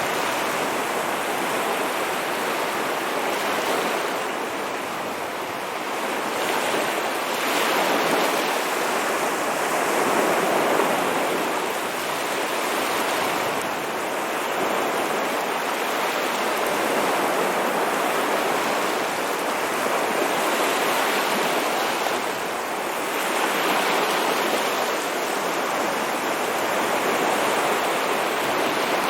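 Ocean waves breaking and washing ashore in a continuous surge, swelling and easing every few seconds.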